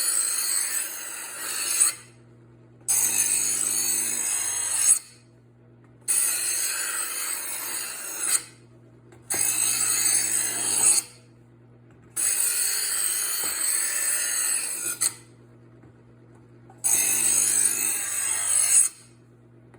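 Chef's Choice Hybrid electric knife sharpener running with a steady motor hum while a kitchen knife is drawn through its first-stage slot. Each pass gives a grinding rasp of about two seconds; there are six passes, a second or so apart, as the abrasive wheels grind the dull edge.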